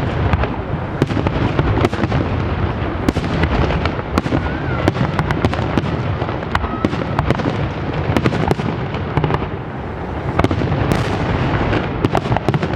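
Fireworks display going off: a dense, continuous barrage of bangs and crackling with many sharp cracks over a steady rumble of launches and booms.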